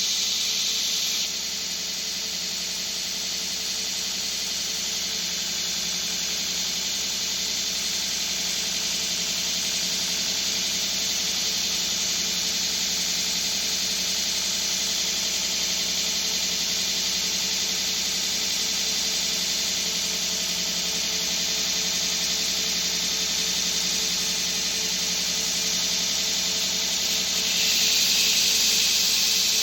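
OBM belt grinder with a 60-grit belt grinding bevels into a steel knife blade: a steady, loud grinding noise over the hum of the grinder's motor. It is a little louder for the first second and again near the end.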